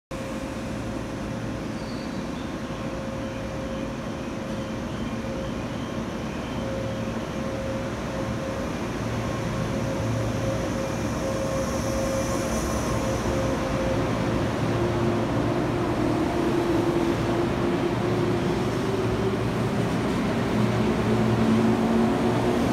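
JR East 485-series electric train pulling out and gathering speed, getting steadily louder as its motors and wheels run past, with a faint whine that rises a little in pitch in the second half.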